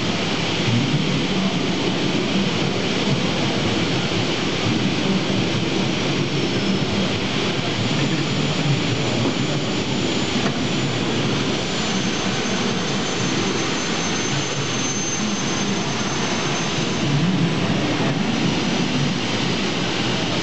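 Steady, loud din of machinery and crowd in a machine-tool exhibition hall. A faint high whine comes and goes in the middle.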